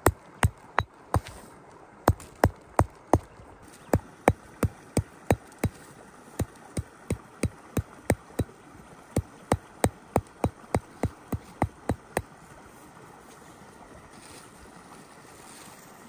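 Repeated sharp knocks, about three a second, in runs of four to seven strikes with short pauses between, stopping about twelve seconds in, over a steady outdoor background.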